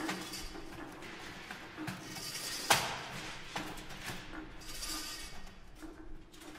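Experimental live contemporary music made from objects and noise: a hissing, rustling texture with faint low tones coming and going. A sharp strike near the middle is the loudest sound, and a weaker one follows about a second later.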